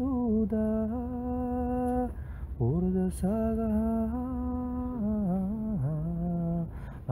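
A single voice singing a slow, chant-like melody in long held notes, gliding down between them.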